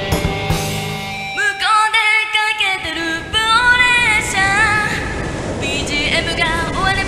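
A pop song: a high sung vocal line comes in about a second and a half in over instrumental band backing.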